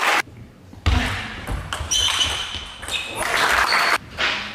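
Table tennis rally in a large sports hall: sharp ball and bat knocks, thumps of players' footwork and short shoe squeaks on the floor, with a burst of spectator noise near the end.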